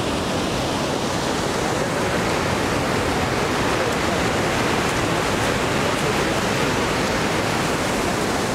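Steady rushing of a large volume of muddy floodwater pouring and churning below the embankment, a continuous even noise.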